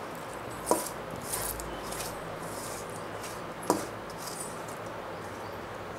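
Two light metallic clinks about three seconds apart as a stainless steel pan knocks against the steel drum of a wet grinder, with soft rustling of sautéed onions and spices being scraped in by hand.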